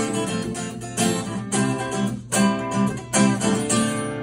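Acoustic guitar strummed in a steady rhythm of chords, an instrumental passage with no voice.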